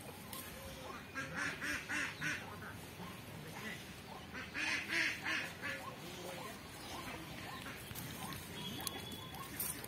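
Ducks quacking in two short runs of rapid calls, each about a second long, a few seconds apart.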